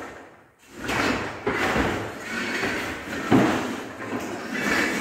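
Scraping and knocking as heavy objects are shoved and handled on a floor, with one sharper knock a little past the middle.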